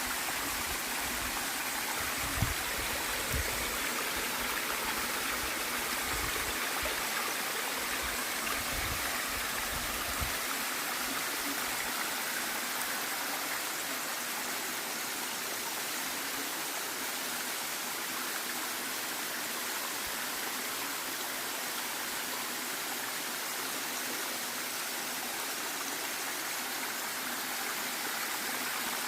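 Waterfall: the steady rush of falling water, an even hiss with no breaks. A few brief low bumps come in the first ten seconds.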